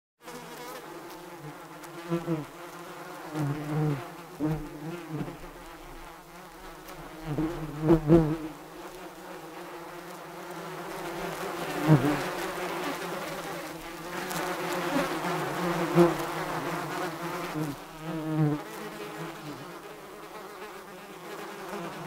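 Many bees buzzing together in a continuous drone that rises and falls, with loud swells every few seconds.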